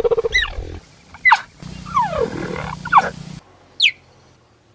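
Cheetah chirping: about five short, high calls, each falling sharply in pitch, the one about two seconds in longer and lower than the rest. The background changes abruptly between calls, as separate recordings are cut together.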